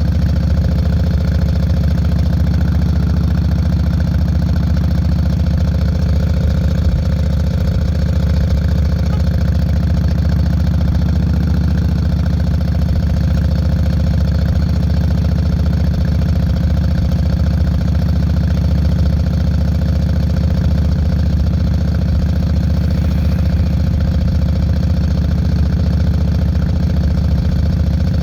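Yamaha Road Star 1600 air-cooled V-twin motorcycle engine, carbureted, running steadily at low, even revs through Vance & Hines Longshots exhaust pipes, with no revving.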